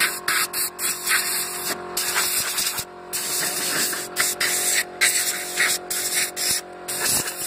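Compressed-air blow gun on a red air hose hissing as it is squeezed and released, breaking off briefly several times. A steady hum runs underneath.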